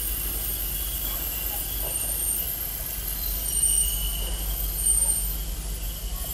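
JIALITE NFM-E1080 automatic vertical laminating machine running, with printed sheets feeding through. A steady low machine hum, with a faint high whine that comes and goes.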